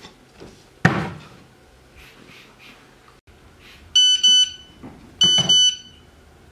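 Mobile phone text-message tone: two pairs of short, high electronic beeps, about four and about five seconds in. Before it, a single thump about a second in as a person sits down heavily on a sofa.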